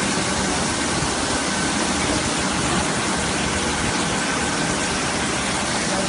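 Automatic carpet washing machine running steadily: an even mechanical hiss with a faint held whine, unchanging throughout.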